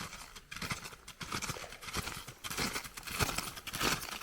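Footsteps crunching in snow, a steady run of short crunches that grows louder.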